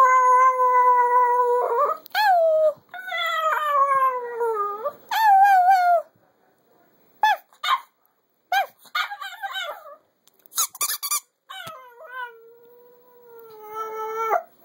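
Chihuahua howling ("singing") in long drawn-out notes that slide up and down, then a run of short, high squeaky yips, then one more long steady howl near the end.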